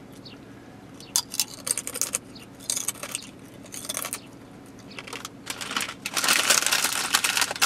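Crunchy house-made potato chips being bitten and chewed close up, as a run of irregular crisp crackles. Near the end the crackling becomes denser and louder.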